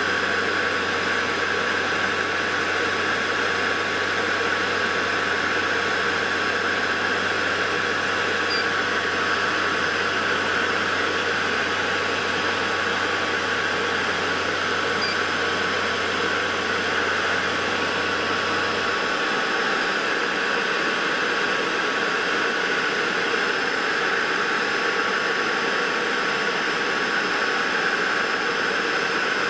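Steady whirring machine noise with a constant high whine from an oil-purifying power centrifuge and a peristaltic pump running at high speed to purge air from the feed line. A low hum underneath stops about two-thirds of the way through.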